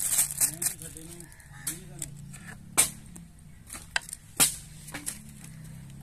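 Several sharp knocks of a knife cutting tomatoes on a plastic cutting board and of the pieces dropping into an aluminium cooking pot, loudest about three and four and a half seconds in. Short rising-and-falling calls repeat a few times in the first two seconds.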